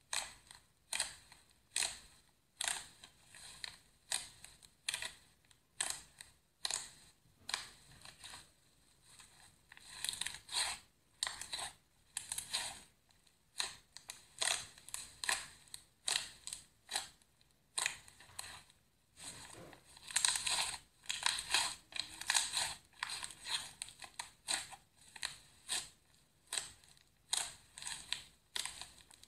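Fluffy slime squished and pressed by hand, making short crackling squishes about one or two a second, with quicker runs in places.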